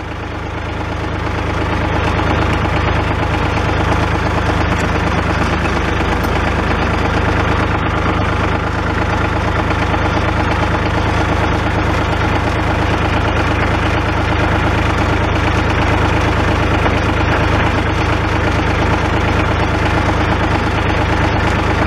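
A 1981 farm tractor's engine idling steadily; it grows a little louder over the first couple of seconds and then holds even.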